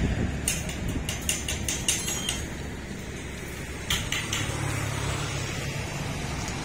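Light metallic clicks or taps: a quick run of about ten in two seconds, then a few more about four seconds in, over a steady low rumble.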